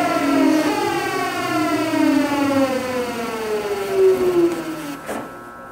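Keio 8000 series Hitachi GTO-VVVF inverter giving off its siren-like magnetic whine: several tones glide steadily down in pitch as the train decelerates. The whine cuts off suddenly about five seconds in, leaving a fainter steady hum.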